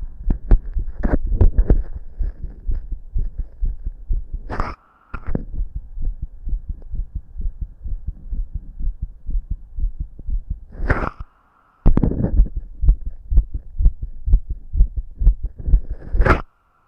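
A man's own heartbeat heard through a stethoscope at the chest: a fast, steady run of low thumps. Three times a brief scraping noise cuts in, each followed by a short dropout.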